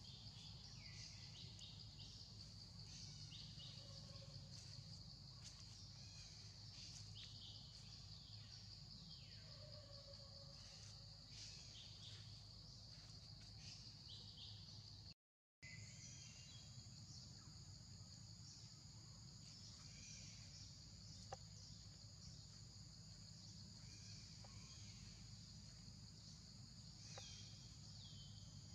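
Faint ambience of a steady, high-pitched insect drone with scattered short, falling bird chirps over a low rumble. The sound drops out completely for a moment about halfway through.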